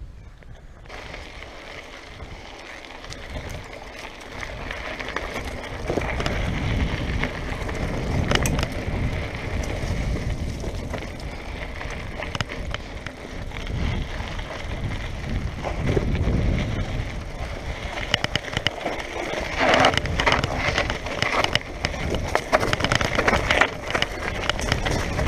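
Mountain bike rolling down a rough dirt-and-gravel trail: tyres crunching over loose ground and the bike rattling and knocking over bumps. It gets louder from about six seconds in and is busiest near the end.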